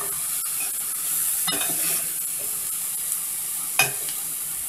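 Chopped onion, chive and whole hot peppers sizzling steadily in hot oil in a stainless steel pan, being stirred. The stirring utensil clinks against the pan about a second and a half in and again near the end.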